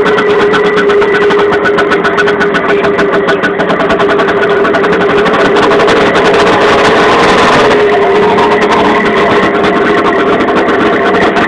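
A small engine running steadily, its note a little stronger for a couple of seconds past the middle.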